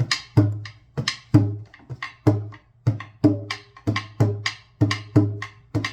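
A small drum (tambor) beaten in a steady rhythm, about two strokes a second, deep ringing strokes alternating with sharper, lighter ones.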